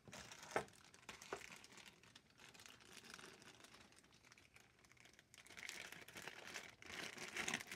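Small clear plastic bag of coiled coax cables being picked up and handled, crinkling, with two light clicks in the first second or so. The crinkling grows louder about five seconds in.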